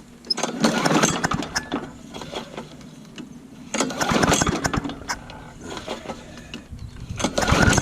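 Old Murray push mower's small engine being pull-started three times, about three and a half seconds apart, each recoil pull cranking it briefly without the engine catching. It is a hard cold start, which the owner puts down to the cold weather.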